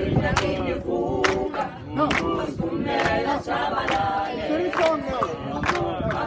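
A mixed group of adults and children singing together without instruments, with sharp hand claps on the beat about once a second.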